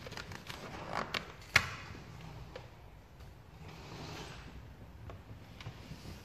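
Black vinyl wrap film being worked into a grille recess with the hard edge of a squeegee: soft rubbing and rustling of the film, a few sharp clicks, the loudest about one and a half seconds in, and a soft swish about four seconds in.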